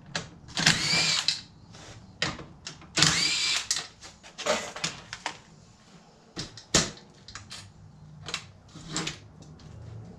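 Handheld power tool spinning out 12 mm bolts from a seat's mounting bracket, in two runs of about a second each, followed by shorter bursts and scattered clicks.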